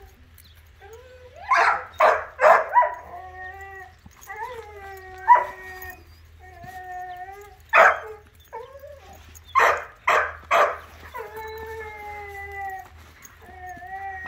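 Dogs whining and howling in drawn-out, wavering tones, broken by short sharp barks: a quick run of four about two seconds in, a single one near the middle, and three more a couple of seconds later.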